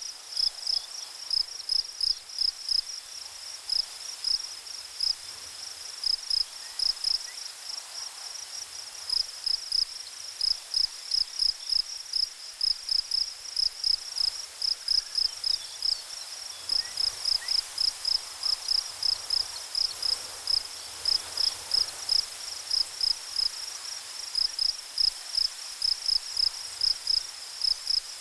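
Insects chirping, cricket-like: a high, pulsing chirp repeated a few times a second in runs with short pauses, over a faint steady hiss.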